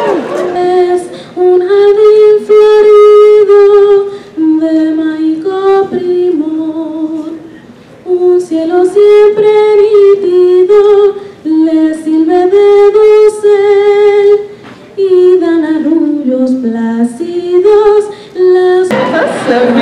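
A girl singing solo and unaccompanied into a microphone, in phrases of long held notes with vibrato, the melody rising and falling, with short breaths between phrases.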